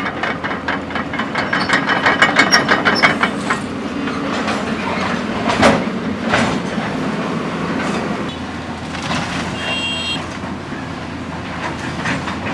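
Heavy demolition machinery at work: a fast metallic clatter of about five clanks a second for the first few seconds, then two sharp crashes around the middle, over a steady low rumble. A short high beeping tone sounds about nine to ten seconds in.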